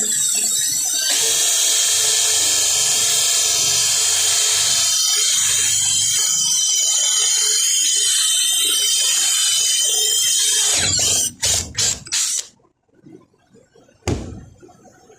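High-speed power tool running steadily with a high whine. About eleven seconds in it is switched off, with a few short bursts before it falls quiet. A single sharp knock comes near the end.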